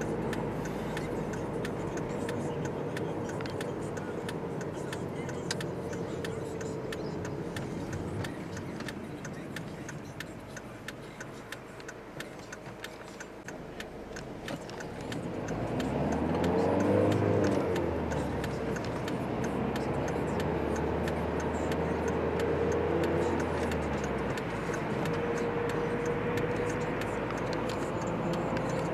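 Car engine and road noise inside the cabin while driving. The car eases off for a few seconds, then about halfway through the engine revs up as it accelerates, and it settles into louder, steady cruising noise at motorway speed.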